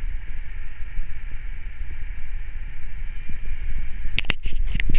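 Electric RC model helicopter's rotor and motor whine running steadily, with wind rumbling on the microphone. Near the end the sound turns abruptly choppy, with sharp pulses and short drop-outs.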